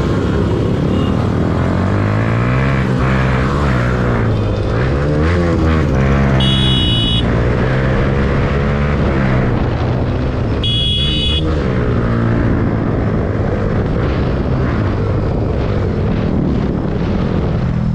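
Several motorcycle engines running on a group ride, their pitches rising and falling and crossing as the riders rev and ease off. Two short shrill tones sound through them, about six and eleven seconds in.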